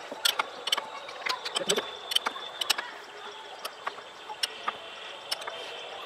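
Sharp, irregular metal clicks and clinks of a 22 mm wrench working the top bolt of a clip-on handlebar as it is tightened onto the fork tube. The clicks come thick in the first three seconds and thin out after.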